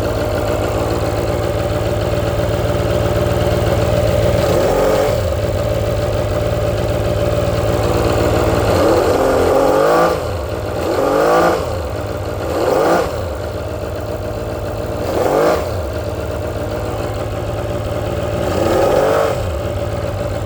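Polaris Virage jet ski's two-stroke engine running steadily, blipped up in revs and back down about six times. The owner suspects an exhaust leak, having seen a lot of smoke and noticed it runs better with the seat off.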